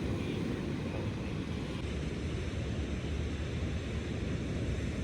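A steady low rumble with a fainter hiss above it, holding level throughout.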